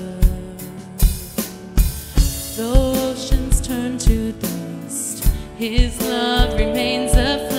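Worship band music: a drum kit with kick and snare keeps a steady beat under sustained instrumental chords, with a wavering melodic line over the last couple of seconds.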